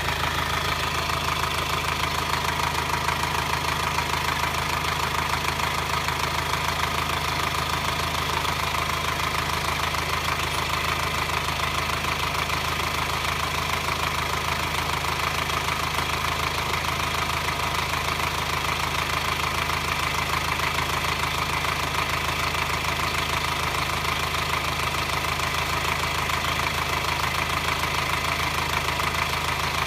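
2009 Subaru Forester's 2.0-litre boxer diesel engine running at a steady speed with a metallic clattering. The owner hears this clatter only when the engine is hot and at low revs, and five mechanics could not find its cause.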